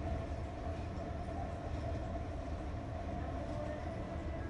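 Steady low rumble of department-store background noise, with a faint steady hum and no distinct events.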